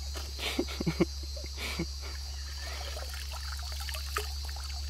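Cast net being hauled out of a shallow creek: a few splashes in the first second, then water trickling and pouring off the wet mesh.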